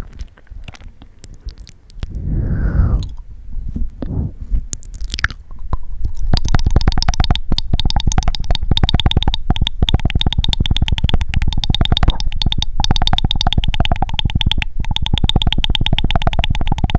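Wet mouth sounds: scattered tongue clicks and a short smacking swell, then from about six seconds in a fast, even run of rapid clicks that goes on unbroken.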